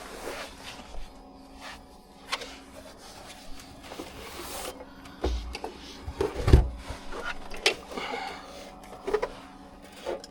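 Scattered clicks, knocks and rustles of plastic car-interior trim and cables being handled and pulled loose, with one louder knock about six and a half seconds in.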